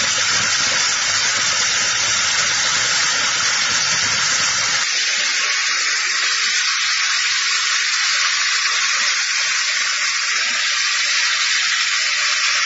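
Laser cutting machine at work: a steady, loud airy hiss of blowing air. A low rumble underneath stops about five seconds in.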